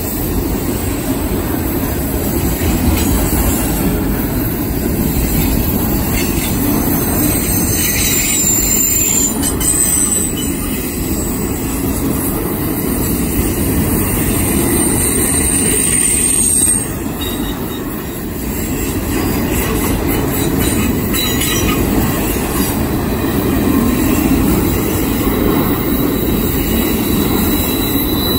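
Loaded autorack freight cars rolling past close by: a steady rumble of steel wheels on the rails, with thin, high wheel squeals a few times, around a quarter of the way in and near the end.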